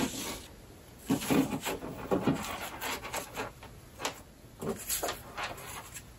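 Folded paper pennants rustling and rubbing as hands slide and adjust them along a yarn string, with a few light knocks of handling on the tabletop.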